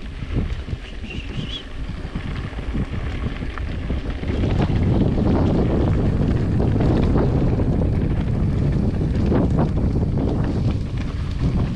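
Wind buffeting the microphone: an uneven low rumble that grows louder about four seconds in.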